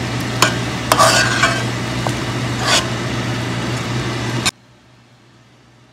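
Metal spoon stirring chicken and red-bean stew in a pot, scraping and clinking against the pot a handful of times over a steady sizzle. The sound cuts off suddenly about four and a half seconds in.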